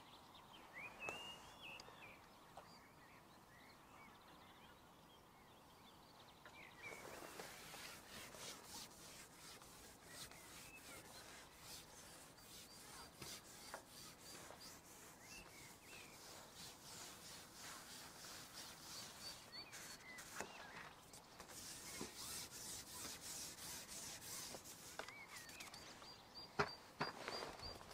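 Faint outdoor ambience: a quiet hiss with scattered soft clicks and rustles, and a few brief high bird chirps here and there.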